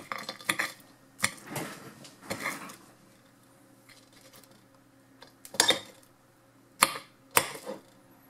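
Metal fork clinking and scraping against a plate as fries are scooped up: a string of short, separate clinks, the loudest a little past the middle and near the end.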